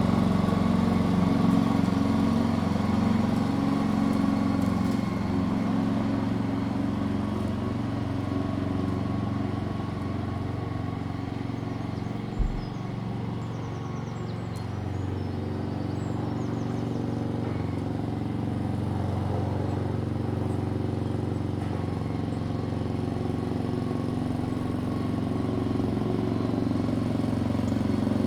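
Lawnmower engine running steadily, growing quieter through the middle and louder again toward the end. A brief low thump about twelve seconds in.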